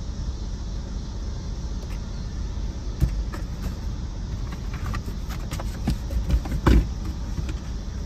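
Car engine idling steadily, heard from inside the parked car. From about three seconds in come scattered knocks and clunks of canned goods being handled, the loudest near the end.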